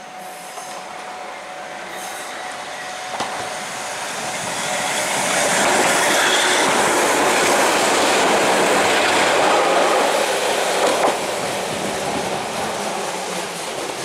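Eizan Electric Railway electric train passing close by, its wheels running and clattering over the rails. The sound grows from about four seconds in, is loudest for several seconds with a couple of sharp knocks, then eases off near the end.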